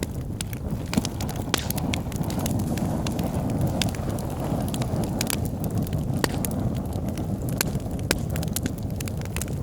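Wood logs burning in a fireplace: a steady low rumble of flames with frequent sharp, irregular crackles and pops.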